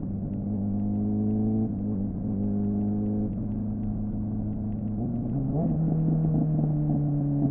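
Suzuki GSF600 Bandit inline-four running through a loud aftermarket SC-Project-style exhaust. The revs climb and drop sharply twice, about two and three seconds in, as it shifts up through the gears. Then the engine settles to a lower note that eases off slowly.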